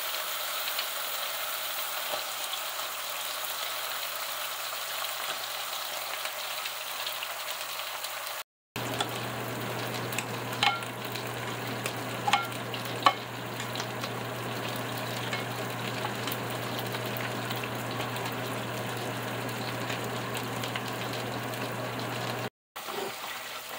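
Seasoned oil and peas sizzling in a saucepan while a wooden spoon stirs them, with a few sharp knocks of the spoon against the pan about halfway through. A steady low hum runs underneath.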